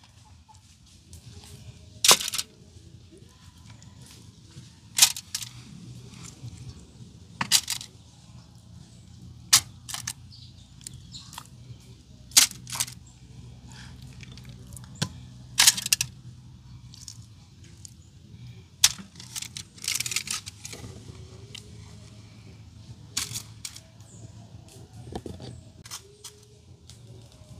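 Sharp clinks and knocks from handling food and cooking utensils, about one every two to three seconds, over a low steady hum.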